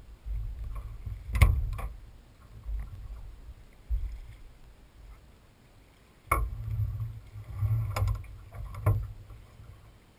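Knocks and thuds on a small aluminium boat's hull, over a low rumbling: about five sharp knocks, the loudest about a second and a half in, and a run of heavier bumps from about six seconds in.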